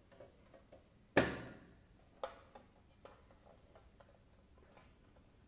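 The lid of a metal car-shaped pencil box clicks open with one sharp clack about a second in, ringing out over half a second. A smaller click follows, then a few faint taps as the inner tray is handled.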